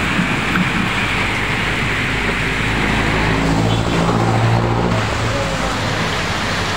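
Heavy typhoon rain pouring down steadily, with motor vehicles driving past on the wet road. One vehicle's engine hum stands out between about three and five seconds in.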